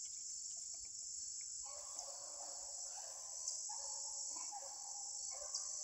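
Outdoor insect chorus: a steady, high, continuous trill. From about two seconds in, a fainter, lower pitched hum comes and goes in stretches of a second or so.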